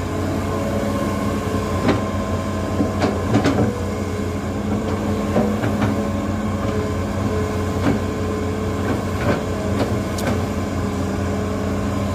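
Hitachi Zaxis 210-5G tracked excavator's diesel engine running steadily under working load with a constant hum, as the boom and arm work the bucket through mud. Short sharp metallic clanks come about eight times, scattered irregularly.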